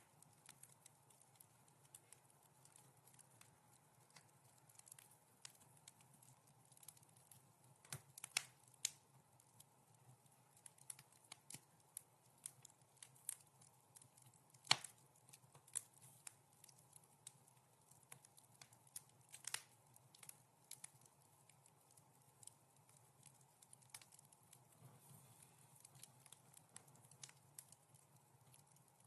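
Wood fire crackling softly: irregular small pops and snaps over a faint steady background, with a few sharper pops standing out, the loudest about halfway through.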